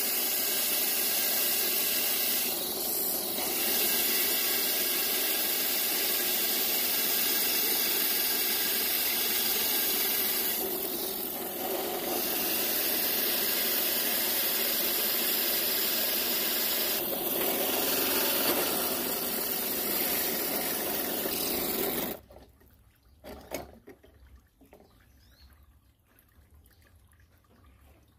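Bench drill press running a hollow core bit down through a block of stone under a jet of cooling water: a steady grinding, spraying noise with brief dips about 3, 11 and 17 seconds in. It cuts off abruptly about three-quarters of the way through, leaving only a few faint clicks.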